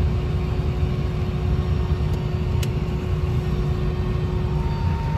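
Airliner cabin noise: a steady low rumble of engines and airflow, with two faint steady hums above it.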